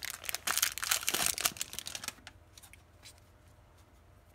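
Clear cellophane wrapper crinkling and crackling as it is pulled off a stack of trading cards, stopping about two seconds in.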